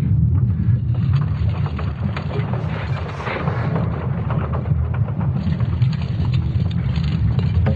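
Sonified recording of Earth's magnetic field: a deep, dense rumble with irregular crackling above it that swells twice.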